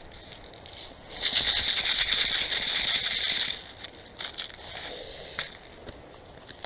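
Airsoft gun firing one long full-auto burst, a fast rattle of shots lasting about two and a half seconds that cuts off abruptly; a few scattered clicks and snaps follow.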